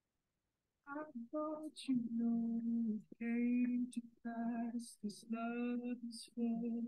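Music starts about a second in: a solo voice singing slow, long-held notes.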